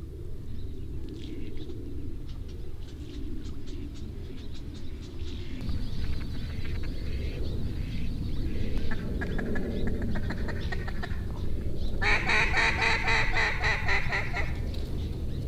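Mallards quacking: scattered calls that build about halfway through into a loud run of rapid quacks and chatter near the end, over a steady low rumble.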